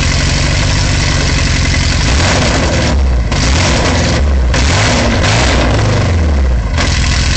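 Alfa Romeo 145's flat-four boxer engine revved hard through an exhaust with no working catalytic converter, very loud, the revs dropping back briefly about three times before climbing again.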